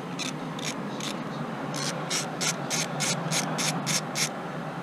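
Socket ratchet wrench clicking as it is worked on a spark plug: short clicks about three a second, with a brief pause about a second in.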